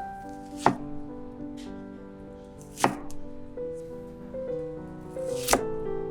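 Kitchen knife chopping on a cutting board: three separate chops, about two to two and a half seconds apart, over soft piano background music.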